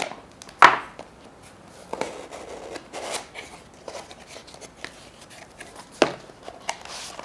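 Small cardboard box being cut and opened by hand: a knife slitting the tape, then the flaps and packing rustling and scraping, with several sharp clicks and snaps, the loudest about half a second in.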